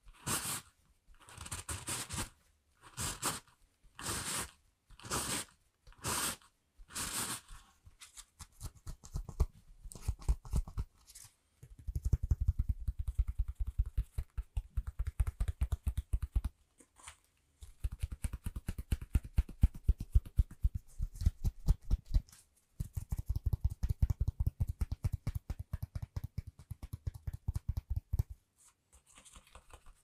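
Close-miked ASMR scratching and brushing on the microphone. For the first eight seconds there is about one slow swishing stroke a second. After that comes fast, dense scratching with a deep rumble, in three bursts of several seconds each.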